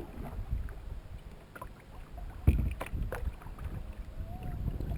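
Canoe being paddled, with paddles dipping and splashing under a low wind rumble. A sharp knock comes about halfway through, followed by a couple of smaller taps.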